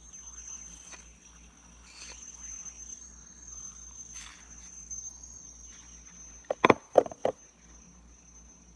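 Heavy fidget spinner spinning between the fingers, its bearing giving a steady high-pitched whine. A few sharp knocks come about six and a half to seven seconds in.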